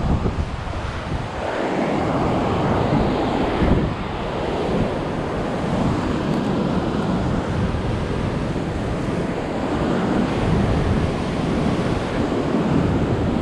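Wind buffeting the microphone in uneven gusts over the steady wash of ocean surf breaking on rocks below.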